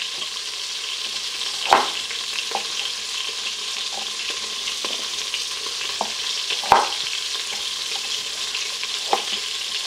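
Beef short rib browning in butter and olive oil in an Instant Pot, sizzling steadily. Over it, a chef's knife knocks on a wooden cutting board about six times, at an uneven pace, as carrots are cut into large chunks.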